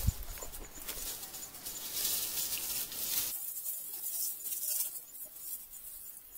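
A steady high-pitched hiss, loudest in the first half and thinning to a faint, very high hiss after about three seconds.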